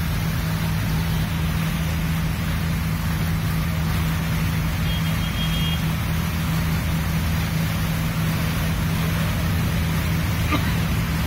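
A passenger ferry's diesel engine running steadily underway: a low, even drone over a constant rushing hiss.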